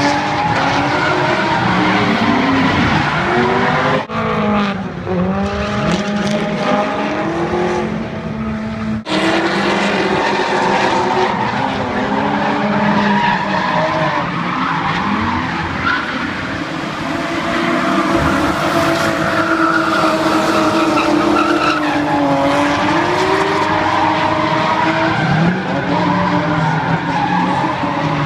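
Drift cars sliding through a course with their tyres spinning and squealing, engines revving up and falling back again and again as they hold the slides. The sound breaks off abruptly and resumes about four and nine seconds in.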